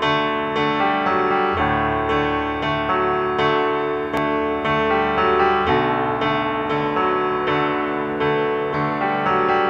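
Background music led by a piano, with notes changing in a steady rhythm.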